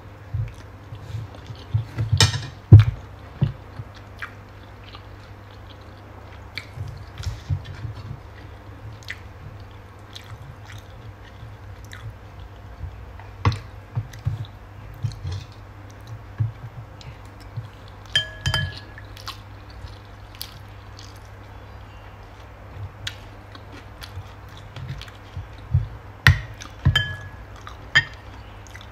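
A person eating with a metal spoon: chewing, and the spoon tapping and scraping on a plate and bowl, with a sharp knock about three seconds in and a couple of ringing clinks midway and again near the end. A steady low hum runs underneath.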